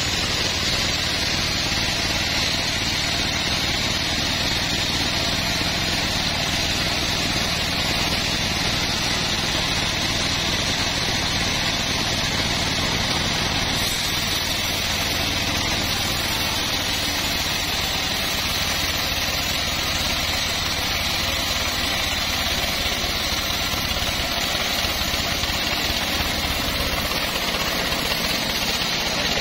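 Homemade band sawmill running steadily as its blade saws lengthwise through a large log: an even mechanical hum with a steady high hiss of the cut.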